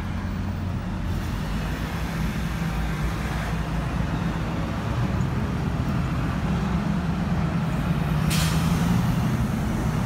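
Steady low drone of a vehicle engine idling, with a brief sharp hiss about eight seconds in.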